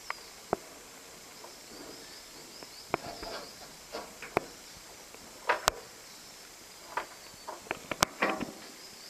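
Scattered light knocks and rustling as a baby orangutan shifts about under a sack on wooden deck boards, over faint high chirping in the background.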